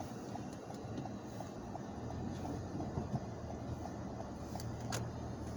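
Steady engine and road noise heard from inside a car driving slowly through a snowstorm, with wind against the car. A single sharp click comes about five seconds in.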